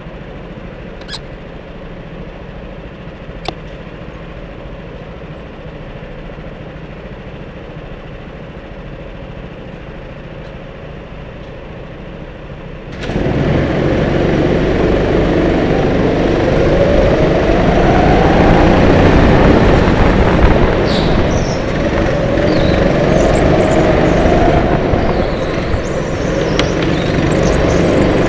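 Onboard sound of a racing go-kart: a low, steady hum with a couple of faint clicks while it is held back, then about 13 seconds in it gets suddenly much louder as the kart accelerates away. After that its pitch rises and falls with speed through the corners.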